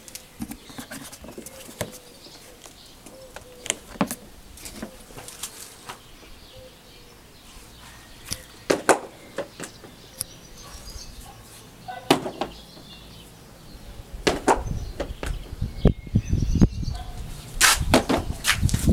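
Irregular clicks and knocks as a Gardena electric lawn mower is handled and wheeled over concrete, its motor not running. A low rumble joins in about two-thirds of the way through, and the knocks get louder and come more often near the end.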